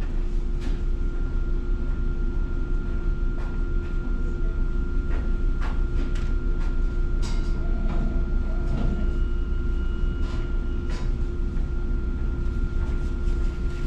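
Steady mechanical hum from restaurant equipment: a low rumble with two constant tones. Scattered light clicks and knocks sound over it, and a faint high tone comes in for a couple of seconds partway through.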